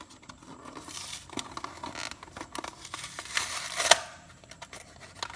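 A plastic blister pack and its cardboard backing card being torn and pulled open by hand, with irregular crinkling and tearing that grows to a louder, dense tear about four seconds in.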